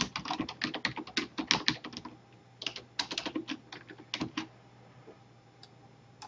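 Typing on a computer keyboard: a quick run of keystrokes, a brief pause, a second run, then only a few scattered clicks after about four and a half seconds.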